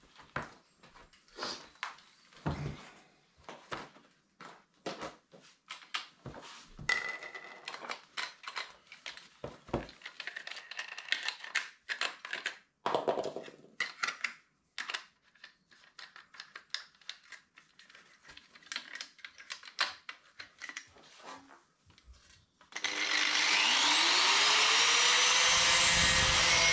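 Scattered light knocks and clanks of metal being handled. About 23 seconds in, an angle grinder starts with a rising whine and runs steadily at full speed, grinding the edge of a steel Mini A-panel to shape.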